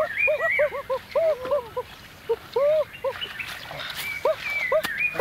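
A fast run of short, squealing animal calls, several a second, each rising and falling in pitch.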